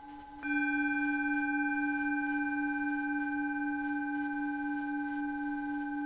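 Sustained ringing meditation tone with several bright overtones, a planetary tone for Mars. About half a second in it is struck afresh and gets louder, then rings on with a slow, even pulsing.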